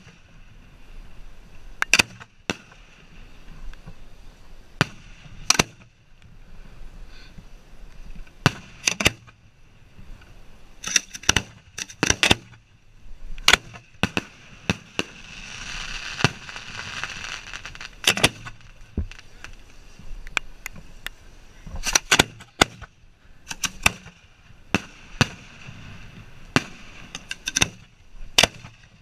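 Fireworks shells in mortar racks being fired by hand with a road flare: a string of sharp bangs at irregular intervals, some in quick pairs, with a few seconds of hissing about halfway through.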